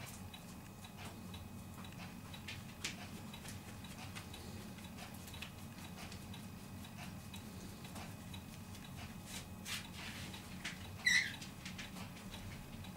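A puppy and a kitten play-wrestling on blankets: soft scuffling of paws and fabric with scattered small clicks, and one short high squeak from one of the animals about eleven seconds in.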